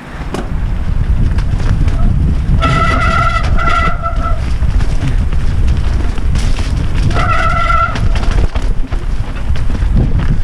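Mountain bike descending a dirt forest singletrack, heard from a camera on the bike or rider: heavy wind buffeting on the microphone and a low rumble of tyres and suspension over dirt and roots. Twice, briefly, a high steady buzzing tone from the bike rises above the rumble.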